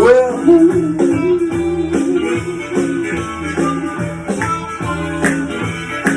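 Blues band playing an instrumental passage: guitar with a long, bent, wavering lead note about the start, over a repeating rhythm.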